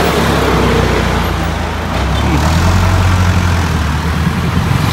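Motor vehicle engine running close by: a steady, loud low rumble of street traffic.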